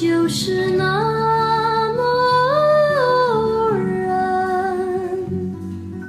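Background music: a song with a singer holding long notes over instrumental accompaniment, the melody stepping up and back down in the middle.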